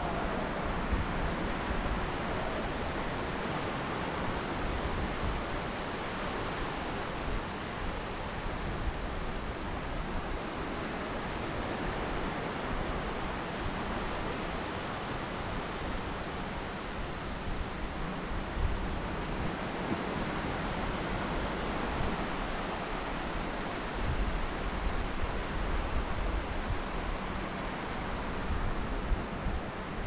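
Steady wind noise buffeting the microphone, mixed with the even wash of distant surf on a wide open beach.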